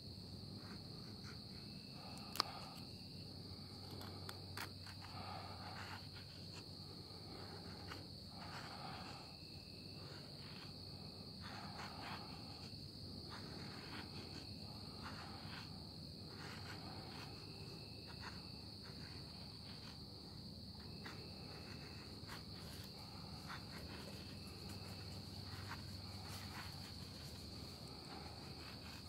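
Knife blade shaving curls down a pine stick to make a feather stick: a soft scraping stroke every second or two. A steady high-pitched tone runs behind it, and a sharp click sounds about two seconds in.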